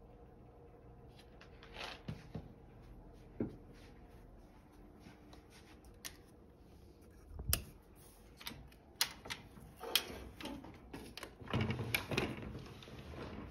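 Faint, irregular clicks, knocks and rustling of someone moving about a room and handling a wooden door and furniture, busier and louder in the second half.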